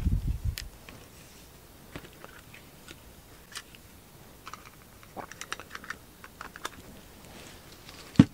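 Irregular light clicks of computer keys, with a dull low thump at the start and a sharper knock near the end.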